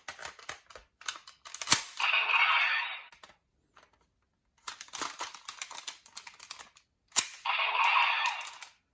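Paper clicking and rustling as a folded paper toy gun is handled. Twice, a sharp click is followed by a hissing blast about a second long, like a toy gun's firing effect. The two blasts come about five seconds apart.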